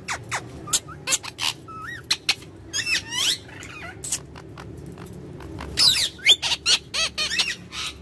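Indian ringneck parakeet giving short, high chirps and squeaks that sweep up and down in pitch, bunched about three seconds in and again near the end, among a run of sharp clicks.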